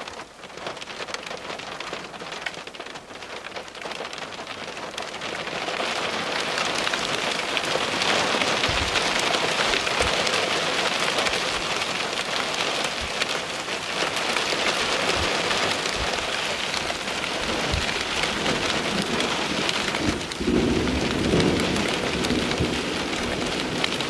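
Heavy wintry precipitation pelting down. It starts light and builds to a dense, steady patter from about five seconds in, as a thunderstorm core arrives. A rumble of thunder comes in near the end.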